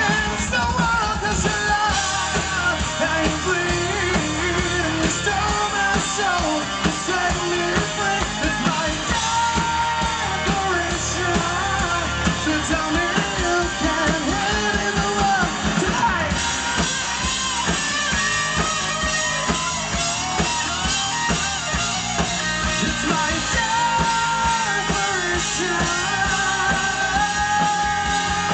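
Live rock band playing a song, with a male lead vocal singing over guitar.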